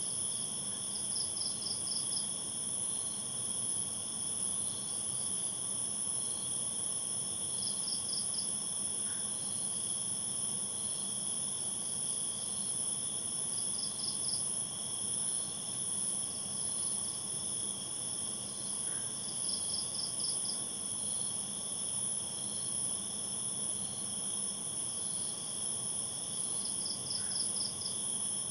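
Night chorus of crickets and other insects: several steady, high-pitched trills overlapping without a break, with a short pulsed chirp repeating about every six seconds.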